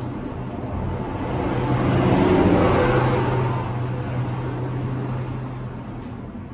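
A vehicle passing by: a rushing noise that swells to a peak about two and a half seconds in and then fades away, over a steady low hum.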